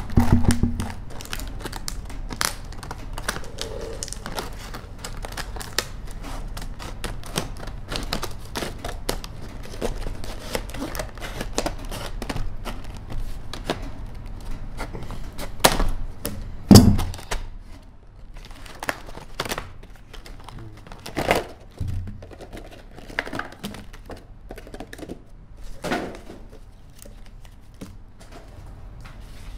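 Scissors cutting through a stiff clear-plastic blister pack: a dense run of clicks and crackles from the plastic, with a few louder knocks about halfway through and later as the pack is pulled apart and handled.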